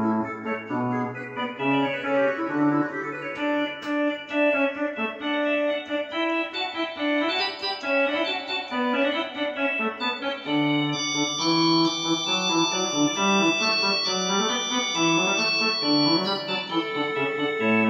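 Organ music: sustained chords moving over a bass line, the low bass notes dropping out for a few seconds in the middle.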